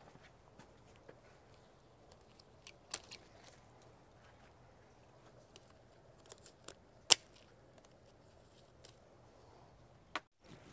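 Quiet handling noise from potting up plants: scattered small clicks and rustles, with one sharp click about seven seconds in.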